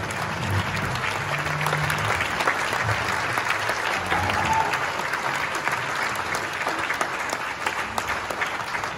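A large crowd clapping steadily in a sustained round of applause.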